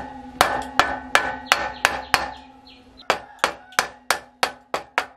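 Hammer blows on a wooden block, driving a bottom bracket bearing cup into a BMX frame's bottom bracket shell: a quick, even series of about fourteen strikes, roughly three a second, with a short pause about two seconds in. A steady ringing tone sounds under the blows.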